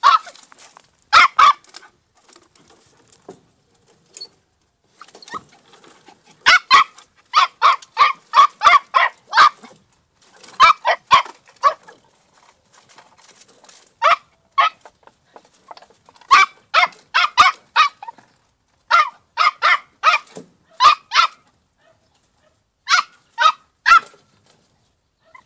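Young podenco puppy yapping: high, sharp barks in quick runs of several at a time, about four a second, with short pauses between runs.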